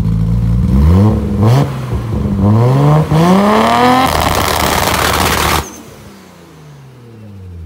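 Car engine through a large single exhaust, revved from idle: a few quick throttle blips, then a longer climb to high revs with a loud rushing noise at the top for about a second and a half, after which the revs fall away slowly.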